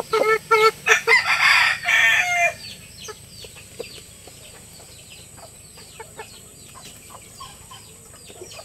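A rooster crows once, loud and harsh, about a second in, the call dropping in pitch at its end. After that comes a run of quick, light taps as a rooster pecks feed pellets off concrete.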